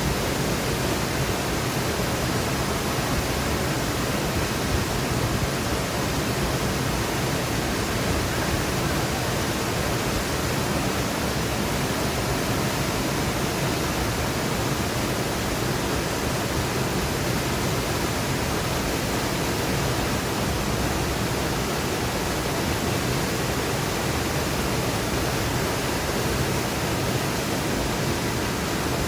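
Forest stream flowing: a steady rush of water.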